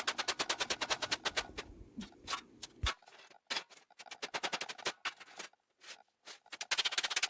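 Rapid, regular hammer strikes on sheet metal, about nine a second, as the metal is bent by hand without a brake. The strikes thin out to scattered taps in the middle and come thick again near the end.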